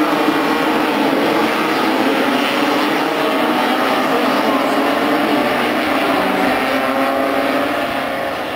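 A pack of racing Vespa and Lambretta two-stroke scooters at race speed, many engines buzzing together in one layered drone. It fades slightly near the end.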